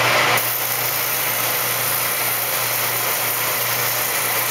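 Ridgid oscillating spindle sander running at a steady pitch, its sanding drum grinding the edge of a hardwood cumaru block down to the line: an even hiss over a constant low hum.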